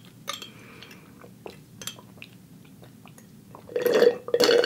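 Sipping a drink through a metal straw from a glass jar: small mouth and straw clicks, then a louder sucking slurp near the end.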